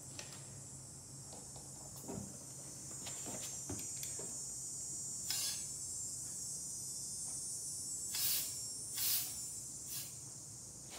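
Pistol-grip air tire inflator with a dial gauge letting compressed air into a flat snow thrower tire in four short hissing bursts, the first about five seconds in and the other three close together near the end, after a few light clicks as it is fitted to the valve. The tire is being brought up from 0 to about 12 psi.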